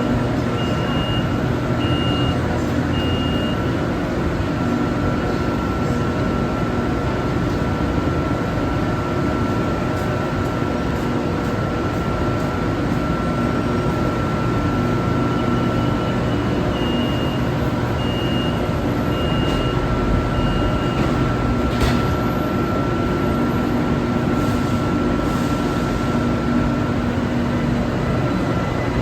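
Inside a BTS Skytrain EMU-B1 car: steady hum with a constant whine from the train's equipment, broken by two runs of high beeps, three near the start and five about sixteen seconds in.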